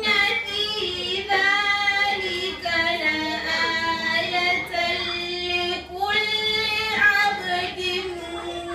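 A girl's voice chanting Quran recitation in the melodic tajweed style, drawing out long held notes with short breaks between phrases.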